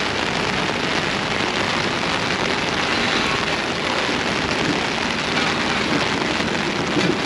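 Heavy rain falling steadily, a dense even hiss of drops pattering on an umbrella overhead.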